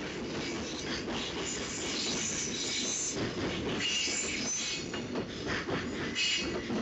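Freight train container wagons rolling past on the rails, with a steady rumble and an intermittent high-pitched squeal of the wheels.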